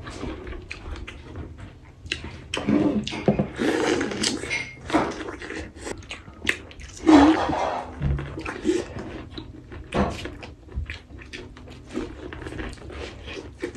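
A person chewing and biting into seafood-boil food up close to the microphone, with scattered small clicks and knocks, and a few louder bites or mouth sounds about three to five seconds in and again around seven seconds.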